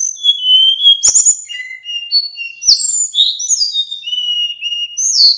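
Male sikatan bambu, a blue flycatcher, singing a fast run of clear, varied whistled notes, many sliding up or down in pitch, with a few sharp clicks about a second in and again near the middle.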